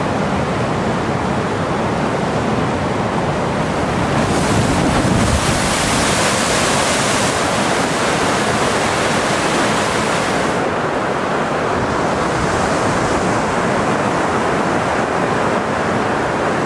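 Flash-flood water rushing, a steady churning of muddy current, turning brighter and hissier from about four to ten and a half seconds in.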